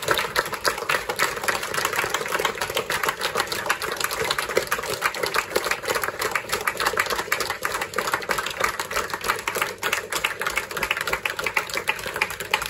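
A roomful of people applauding: a steady, sustained round of clapping from many hands.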